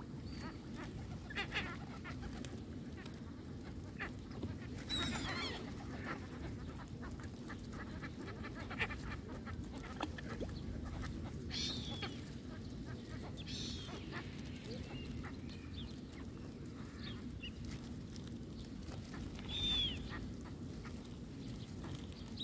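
Waterbirds calling: about five short, separate calls a few seconds apart over a steady low background noise. Faint taps of feral pigeons pecking at bread held in the hand.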